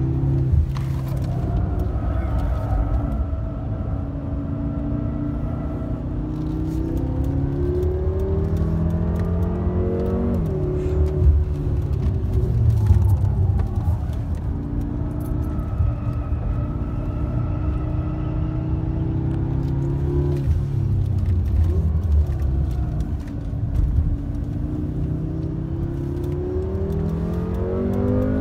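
BMW M6 Gran Coupe's twin-turbo V8 at hard acceleration on a race track, heard from inside the cabin. The revs climb and drop sharply at an upshift about ten seconds in and again at the very end, easing off and falling for a while about two-thirds of the way through.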